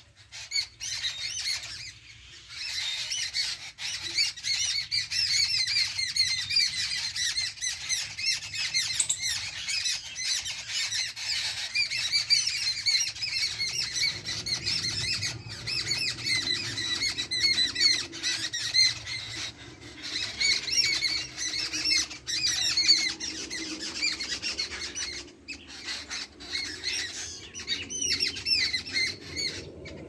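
A group of small birds keeps up a harsh, chattering squawking, many short calls overlapping without a break.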